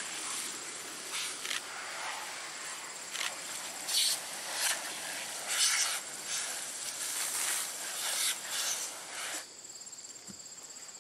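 Garden hose spraying water onto clothing and grass: a splashing hiss that swells and dips, then stops about nine and a half seconds in. After that a steady, high-pitched insect trill is left.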